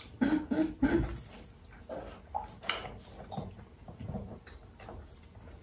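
Three short, muffled vocal sounds from a person in quick succession at the start, followed by faint chewing and small mouth and table clicks.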